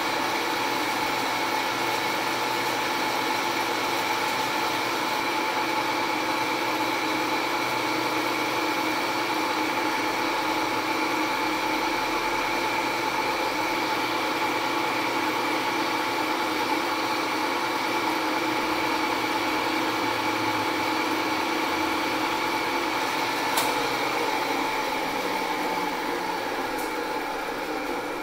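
Metal lathe running, its four-jaw chuck spinning, with a steady hum and gear whine. About 24 seconds in there is a click, and the sound then slowly fades as the chuck spins down.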